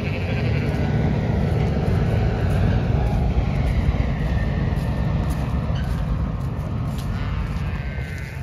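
A big tractor running along the road, a steady low engine rumble that swells a little and then fades toward the end as it passes.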